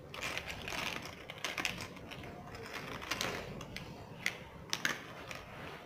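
Small plastic game counters being set out by several hands on a board, clicking and clattering lightly as they knock together and are pressed into place. The clicks are scattered and uneven, with a few sharper ones near the end.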